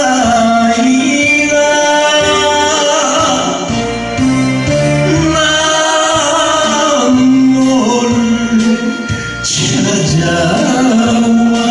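A man singing a Korean trot song live through a handheld microphone, with instrumental accompaniment and long held notes.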